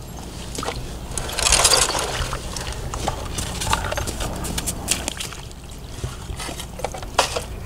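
Shallow muddy puddle water sloshing and splashing as a plastic toy bulldozer is pushed through it, with scattered small clicks and knocks; the loudest splash comes about a second and a half in.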